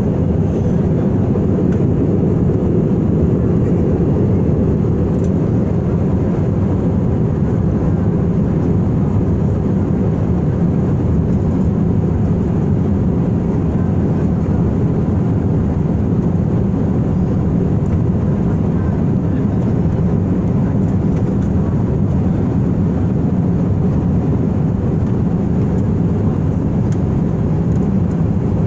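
Steady cabin noise of a jet airliner in flight, the engines and rushing air heard from inside the cabin as an even, low-weighted roar that does not change.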